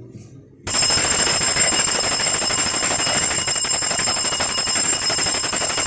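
A bell rings loudly and continuously, starting sharply about a second in and stopping abruptly. It signals the priest's entrance at the start of Mass.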